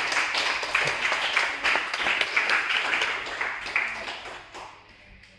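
A small group applauding with their hands, the clapping dying away about four and a half seconds in.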